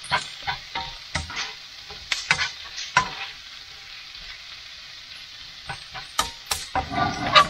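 Diced potatoes and onions frying in a pan with a steady sizzle, while a spatula stirs them, scraping and clicking irregularly against the pan; the stirring gets busier near the end.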